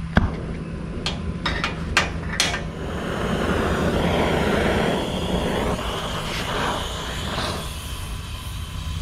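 A few sharp clicks in the first two and a half seconds, then the steady hiss of an oxy-acetylene cutting torch flame, loudest in the middle and easing near the end, as it preheats a broken drill bit stuck in stainless steel.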